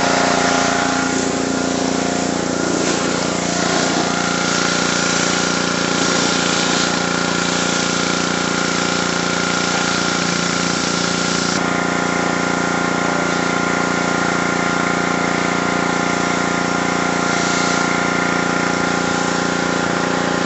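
Pressure washer running steadily, a continuous even-pitched drone with a hiss of spray over it.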